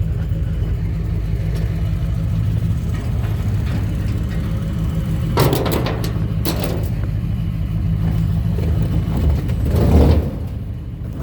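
A vehicle engine running steadily, with a few brief knocks or rattles about five and a half, six and a half and ten seconds in.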